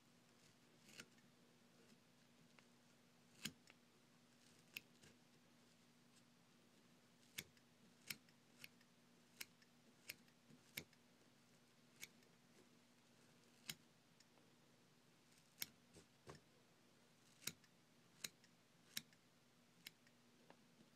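Small scissors snipping through spun deer hair to trim a mouse fly's body: crisp, separate snips at an irregular pace, roughly one a second.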